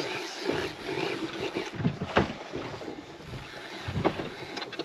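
Wind and sea noise on a small fishing boat, with a few knocks around two seconds and four seconds in.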